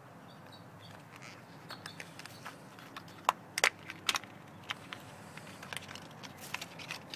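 Scattered sharp clicks and light rustling from handling tools and parts, the loudest a few clicks in the middle, over a faint steady background.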